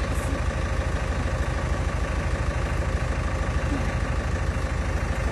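A machine's engine running steadily at idle, with a low, rapid throb and a constant hum.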